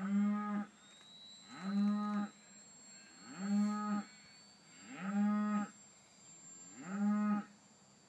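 A cow mooing five times in a steady rhythm, each moo about two-thirds of a second long with the pitch rising, holding and falling. A faint high whine slowly rises behind it.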